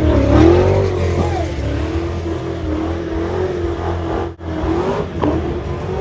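Car engine revving hard, its pitch rising and falling, with a brief sharp dropout about four seconds in.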